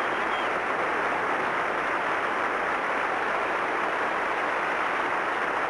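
Studio audience applauding steadily at the end of a comedy routine.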